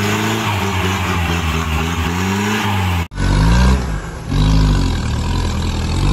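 Off-road 4x4 diesel engines revving hard under load on a muddy climb, blowing black smoke. About three seconds in, a cut brings a second 4x4 whose engine revs up and drops back in repeated surges as it claws up the bank.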